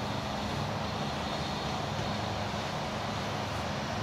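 An engine running steadily in the background: an even, low droning hum with no change.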